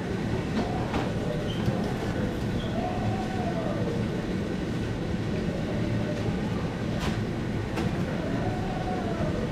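Supermarket ambience: a steady low rumble with a few sharp clicks and faint rising-and-falling tones.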